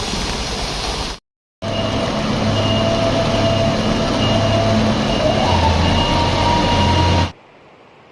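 A heavy vehicle engine running under a loud rushing noise, with a short dead gap about a second in; the engine's pitch steps up at about two-thirds of the way through. The sound cuts off abruptly near the end, leaving only a faint hiss.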